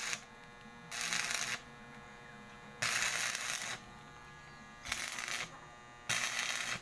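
Electric arc welder laying short tack welds on a metal tube bed frame. The arc crackles and hisses in about five bursts of half a second to a second each, with a steady hum between them.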